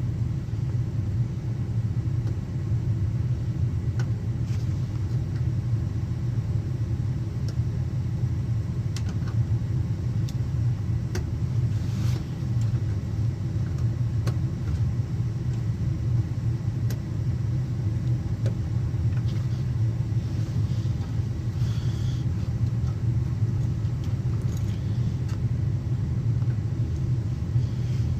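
Steady low rumbling hum with a few faint clicks, like wires and parts being handled.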